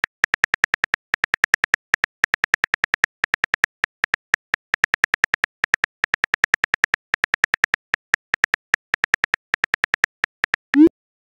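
Simulated phone-keyboard typing clicks from a texting-story app, a fast patter of about seven taps a second in short runs as a message is typed out letter by letter. Near the end a short rising blip sounds.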